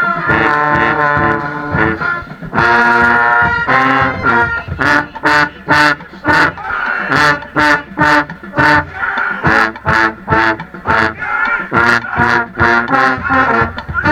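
Pep band brass section, trombones and trumpets, playing a stand tune: held chords at first, then from about four seconds in short accented hits about twice a second with drum and cymbal strikes.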